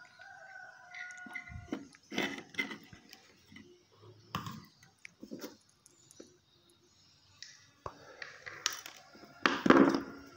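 Scattered light knocks and rustles of handling as a small MOSFET circuit board on an aluminium heatsink is turned over in the hand. A louder rustle comes near the end, and a faint steady tone sounds briefly at the start.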